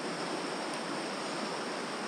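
Steady rush of a mountain trout creek's flowing water.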